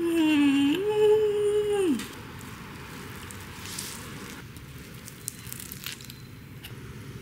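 A woman's hummed 'mmm' in two held notes, the second a step higher, lasting about two seconds. Faint eating sounds follow as she bites into a sandwich.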